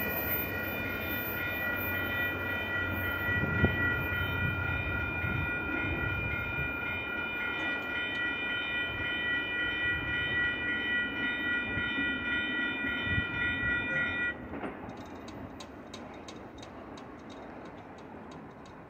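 Railroad grade-crossing warning bell ringing steadily over the fading rumble of a passing freight train. The bell stops suddenly about fourteen seconds in, once the train has cleared, leaving only the faint receding train.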